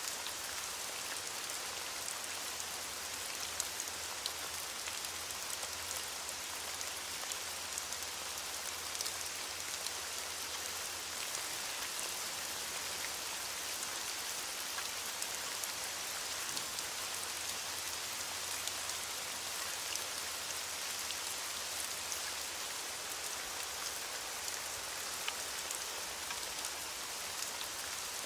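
Steady heavy rain, falling evenly on a surface, with scattered individual drops ticking through the hiss.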